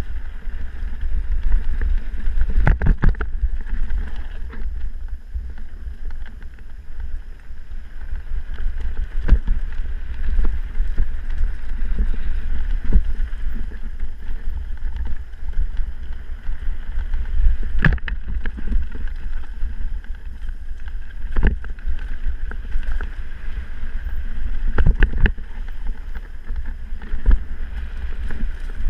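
Wind rushing over the microphone and tyres rolling on dirt as a mountain bike descends rough singletrack, with several sharp knocks and rattles where the bike hits bumps.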